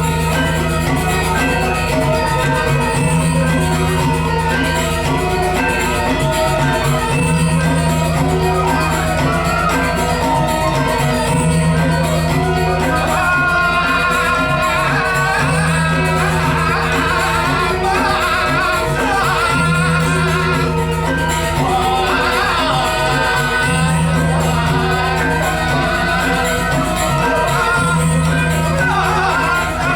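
Balinese gamelan ensemble playing steadily, with a low pattern returning about every four seconds under many ringing pitched lines. A wavering high melody joins in about halfway.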